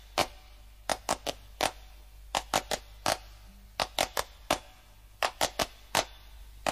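Sharp percussive claps in a repeating rhythm, four to a group, with a new group about every second and a half, opening a rumba recording.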